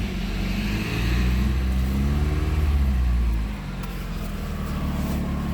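Chrysler PT Cruiser engine running just after a jump start. About a second in it is revved, the pitch climbing and then falling, and it settles back to a steady idle after about three and a half seconds.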